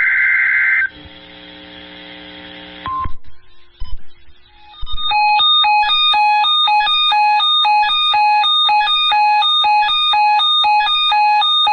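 Weather radio alert: a harsh, raspy digital data burst (the SAME header that precedes an alert broadcast) for about the first second, then from about five seconds in a receiver's electronic alarm beeping fast in an alternating multi-tone pattern, several beeps a second.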